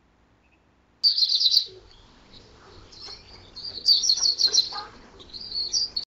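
Canary singing in bursts of rapid high chirps and trills after a near-silent first second: one burst about a second in, a longer, louder run in the middle, and another near the end.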